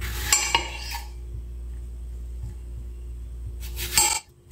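Kitchen-counter handling noise: brief knocks and rustles in the first second and again just before the end, over a low steady hum. The sound cuts off abruptly near the end.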